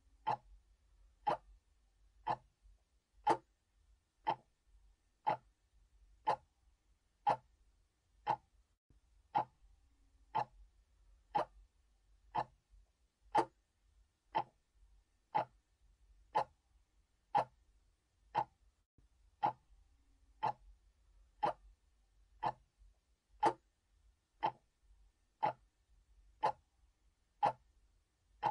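Mechanical clock ticking steadily at about one tick a second, each tick a sharp, even click.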